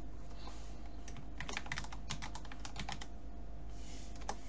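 Typing on a computer keyboard: a quick run of keystrokes lasting about two seconds, then a single keystroke near the end.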